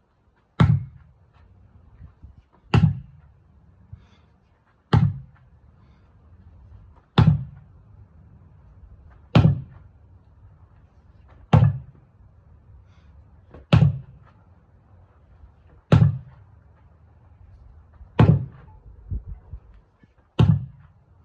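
A 12-pound sledgehammer slamming down on a tire in a steady rhythm, ten heavy thuds about two seconds apart, each with a sharp crack at contact.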